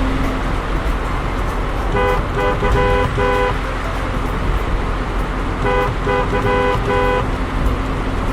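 Railroad level-crossing warning bell ringing "kan kan kan": two runs of quick, evenly spaced pitched strokes, about three a second, over a steady low rumble.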